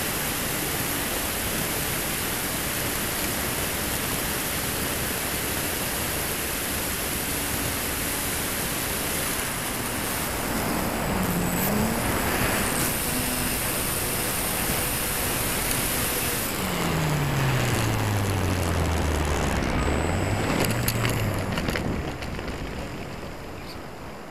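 Steady wind rush on an onboard camera with the electric motor and propeller of an E-flite Timber RC plane in flight. The motor's pitch dips briefly, then falls away as it throttles down to land, and the sound gets quieter near the end as the plane rolls to a stop on sand.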